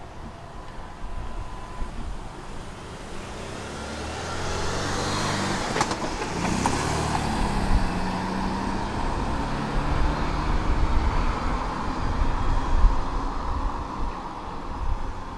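Street traffic, with a motor vehicle passing close by: it grows louder from about four seconds in, and its engine note drops in pitch as it goes past.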